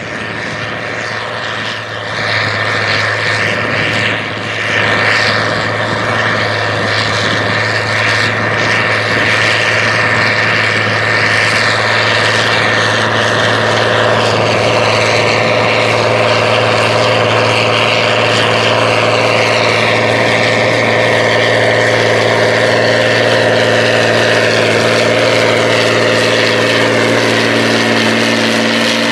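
A John Deere 8520T track tractor's 8.1-litre diesel engine running steadily under load as it pulls a reel disk through the soil, a continuous loud drone. It grows louder a few seconds in as the tractor approaches, and its pitch eases slightly downward in the second half.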